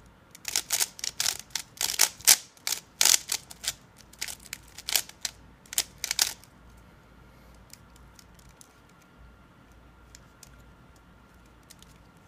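Speedcube's layers clicking and clacking in quick, uneven runs as turns are made, most likely executing a G perm on the last layer. The clicks stop about six seconds in, leaving only a few faint ticks.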